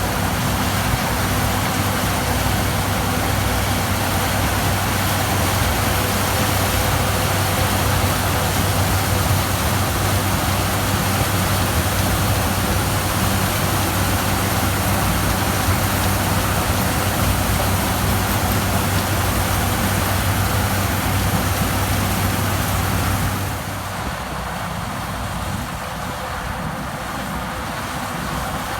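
New Holland TX34 combine harvester running steadily while working, with a constant low engine hum under a wide mechanical rush. About twenty-three seconds in, the sound gets a little quieter and the low hum falls away.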